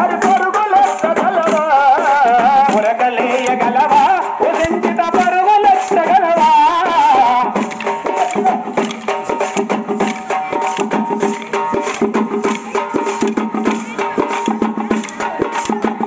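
Folk song for a stick dance: a voice sings the wavering melody over percussion, with a dense run of sharp wooden clicks from the dancers' sticks striking together. About seven and a half seconds in the singing stops, leaving steady held notes with the clicks going on.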